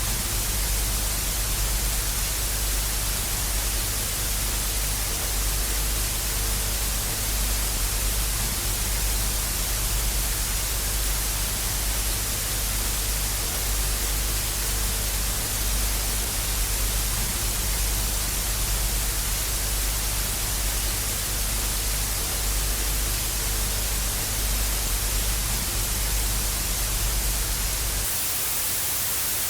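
Television static: a steady, even hiss with a low buzz underneath. About 28 seconds in the buzz cuts off and the hiss carries on.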